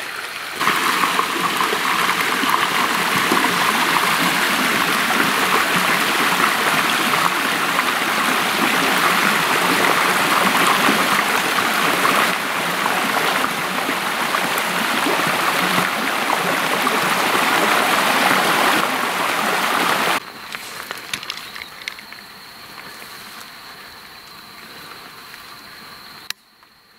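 Mountain stream running over rocks, a loud steady rush of water that stops abruptly about twenty seconds in. A much quieter background follows, with a faint steady high-pitched tone.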